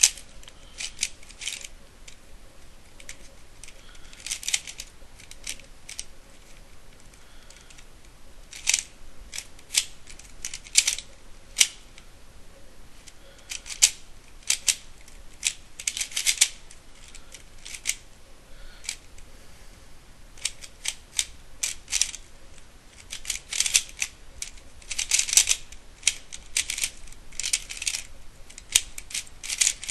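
DaYan Guhong 3x3 speedcube being turned rapidly during a solve: irregular flurries of plastic clicking and clacking, with short pauses between bursts.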